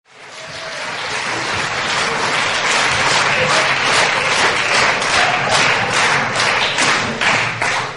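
Audience applause, a dense patter of many hands clapping that swells in at the start and dies away near the end.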